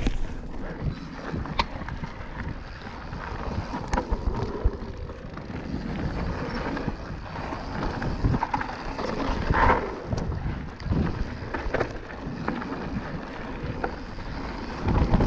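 Enduro mountain bike descending a dirt trail: tyre roar over packed dirt with scattered knocks and rattles from the bike, and wind buffeting the microphone.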